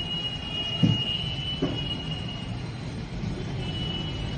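Steering-rack pinion bearing turned by hand, giving a steady high whine that fades about two and a half seconds in and briefly returns, with two light knocks. The bearing is judged to be in good condition.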